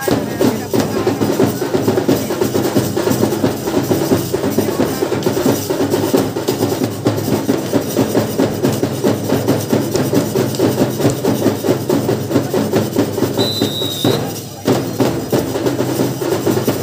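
Drums playing a fast, driving rhythm, the accompaniment to a lathi khela stick-fighting bout. A short high steady tone sounds about three-quarters of the way through, just before a brief break in the drumming.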